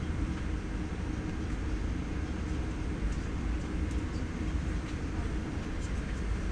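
Airliner cabin noise during landing: a steady low rumble of the jet engines and airflow, heard from inside the cabin, with a faint steady hum above it.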